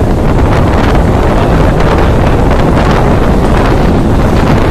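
Wind rushing and buffeting the phone's microphone at the open window of a moving electric local train, over the train's steady running noise.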